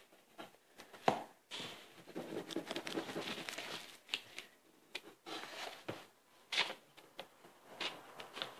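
Rubbing and rustling on a sheet of drawing paper from erasing pencil lines and brushing away the eraser crumbs, a stretch of about two and a half seconds, with a few sharp taps on the paper before and after.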